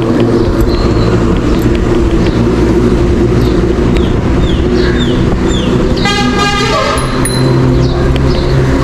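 Road traffic: motor vehicle engines running steadily, with a vehicle horn honking for just over a second about six seconds in.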